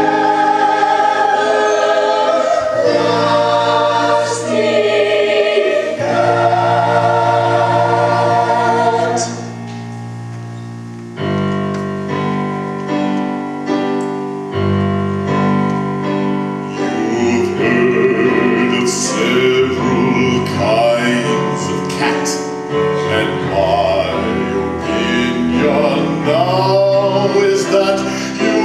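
Musical-theatre chorus singing sustained chords with accompaniment. About ten seconds in the singing drops away briefly, then a rhythmic accompaniment of repeated notes starts and voices come back over it.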